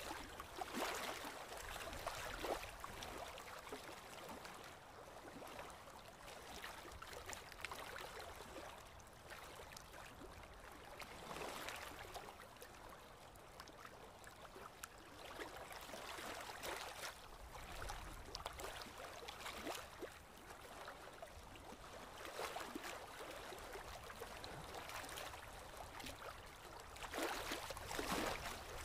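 Small waves lapping and splashing against a concrete seawall, rising in irregular swells every few seconds, loudest near the end.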